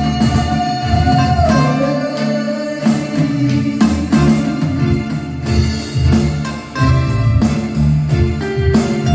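Live band playing: electric bass and electronic keyboards over a steady beat, with a held melody note that slides down about one and a half seconds in.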